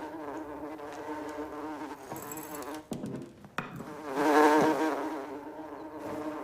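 Housefly buzzing in flight: a steady, wavering wing hum that drops away briefly about three seconds in, with a couple of clicks, then swells louder about four seconds in and fades again.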